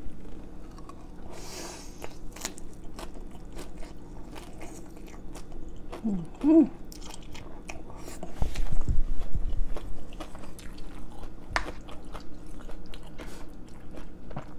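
Close-up eating sounds of noodle soup being slurped and chewed, with many small wet mouth clicks. There is a short vocal sound about six seconds in.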